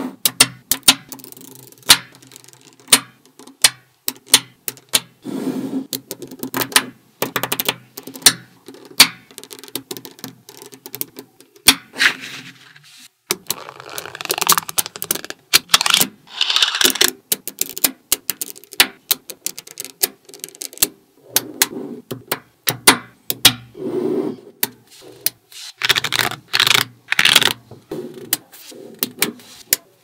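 Small magnetic balls clicking and snapping together in quick, irregular clicks as rows are laid down and pressed into place. A card scrapes across the balls in longer stretches around the middle and again near the end.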